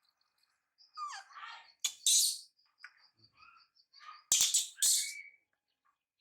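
A small pet animal's high, quick chirping squeaks and a short falling call, with two loud hissy bursts of noise.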